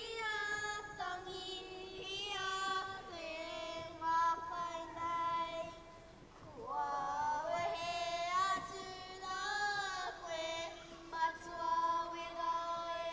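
A group of primary-school children in a Māori kapa haka group singing together in unison, holding long notes, with a short lull about six seconds in before they come back in.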